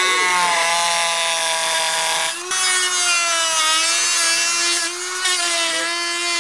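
Handheld high-speed rotary tool cutting a motorcycle's plastic shroud: a steady high-pitched motor whine whose pitch sags slightly as the bit bites into the plastic, with a short break about two and a half seconds in.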